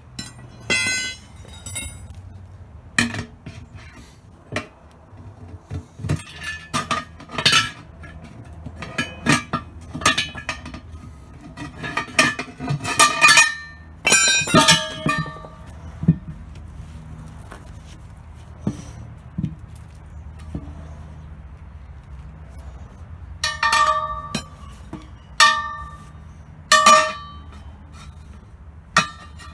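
Crowbars clanking and scraping against a metal wheel rim as a tire is pried off by hand: irregular sharp metallic clinks and knocks, some ringing briefly, with three ringing clangs near the end.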